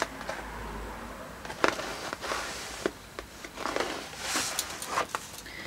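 A cardboard gift box being handled and opened by hand: soft rustling of paper and card with a few light clicks and taps.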